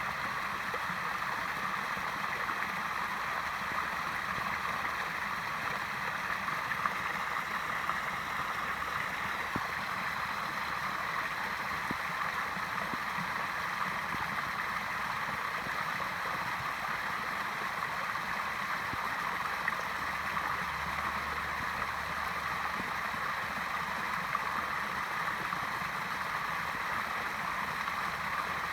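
Waterfall, water falling and splashing in a steady rush.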